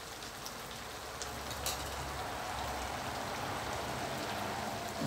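Chicken giblets and long beans sizzling in a hot wok, a steady crackling hiss, with one light click about a second and a half in.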